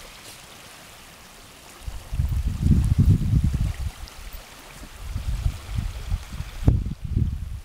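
Wind buffeting the microphone in gusts, a low uneven rumble that surges twice, with a brief knock near the end.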